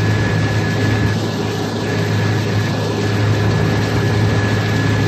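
A pilot boat's engines running steadily underway: a deep, constant drone with a thin steady whine above it and a rushing haze of water and wind.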